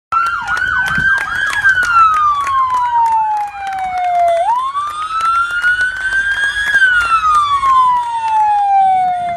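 Fire-department vehicle siren sounding a slow wail, rising and falling in pitch in cycles of about five seconds. In the first second and a half a second siren yelps over it in quick rapid sweeps, and scattered sharp clicks sound through it.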